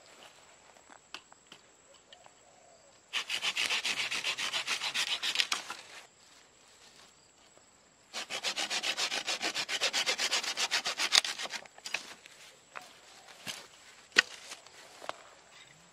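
Folding pruning saw cutting through a dry dead branch in two runs of quick back-and-forth strokes, about four strokes a second. A few sharp clicks follow near the end.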